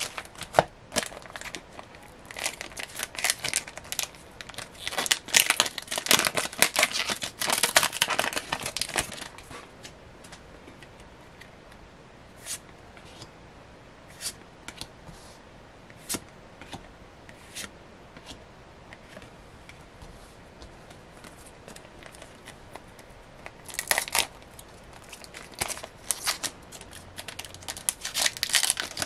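Foil wrappers of Japanese Pokémon booster packs crinkling and tearing open for the first nine seconds or so. Then a long quieter stretch with scattered light clicks as the trading cards are handled, and from about 24 seconds the crinkling of the next foil pack being torn open.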